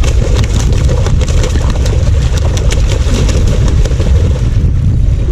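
Strong wind buffeting the microphone, a heavy steady rumble, with short rapid clicks and rattles scattered through it.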